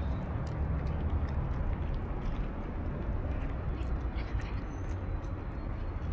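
Cats crunching dry kibble, many small sharp clicks, over a steady low rumble of traffic.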